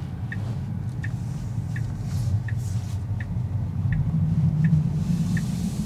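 Turn-signal indicator ticking evenly, about three ticks every two seconds, inside the cabin of a Tesla Model 3 electric car, over a steady low road and tyre rumble.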